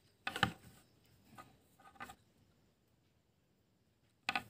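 A handful of short clicks and knocks as a small DC motor with a drill-chuck coupling is picked up and handled, the loudest about half a second in. The motor is not running.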